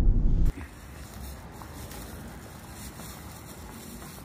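Low rumble inside a car's cabin that cuts off abruptly about half a second in, leaving only faint, steady background noise.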